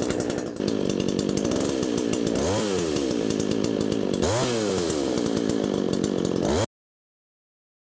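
Chainsaw running with a see-through plexiglass bar tip, revved up and back down twice, then cutting off suddenly near the end.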